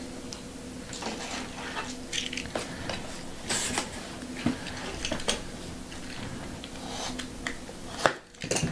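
Trading-card packaging being opened and handled: irregular crinkles, scrapes and small clicks, with a faint low steady hum underneath.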